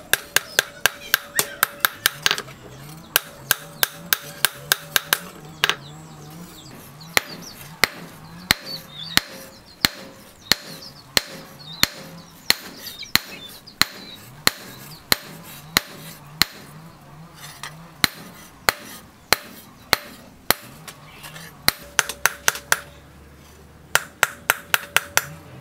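Hand hammer forging a red-hot steel knife blade on a small steel anvil: sharp metallic blows in quick runs of about two to four a second, broken by short pauses, with a faint ring from the anvil.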